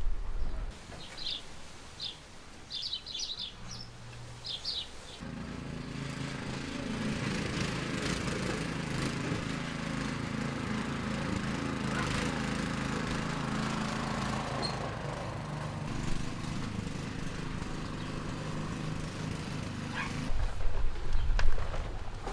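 Birds chirp in short calls, then about five seconds in a two-wheel walking tractor pulling a trailer cart starts to be heard, its engine running steadily for about fifteen seconds. Near the end the engine stops and a low rumbling noise takes over.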